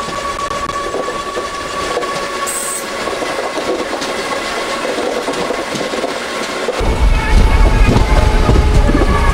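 Vivek Express passenger train running along the track, a steady rolling noise with a faint constant tone in it. About seven seconds in, a much deeper, louder rumble cuts in suddenly.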